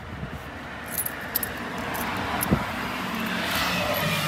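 Street traffic noise swelling as a vehicle goes by, with a few small clicks and one sharp knock about two and a half seconds in.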